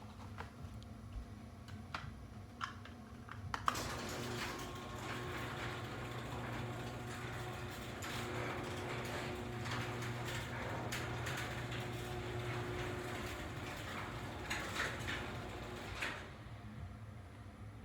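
Craftsman 139.53930DM garage door opener closing the door: a few clicks, then the motor and drive run steadily with a low hum for about twelve seconds and stop with a knock near the end.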